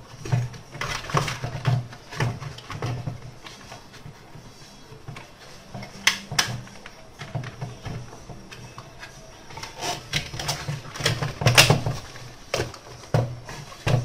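Irregular plastic clicks and knocks of a blender base being handled: the motor and its wiring pushed into the plastic housing and the bottom cover fitted back on. Several louder knocks come in the second half.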